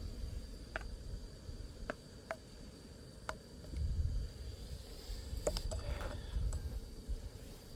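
Light clicks and taps of camp cooking gear being handled, a handful of separate sharp ticks spread over several seconds, over a low steady rumble.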